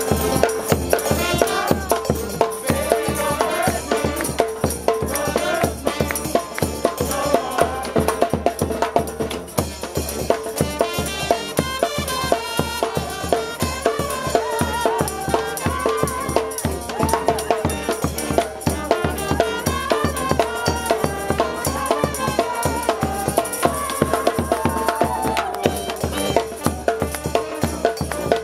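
Street brass band playing a lively tune live: sousaphone, trombones and saxophones over a steady, dense drum-and-cymbal beat.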